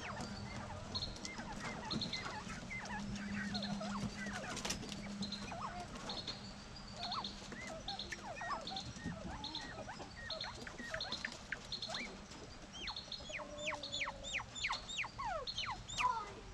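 Quail in a coop chirping and peeping: many short calls sliding up and down in pitch, with a quick run of downward-sliding calls near the end.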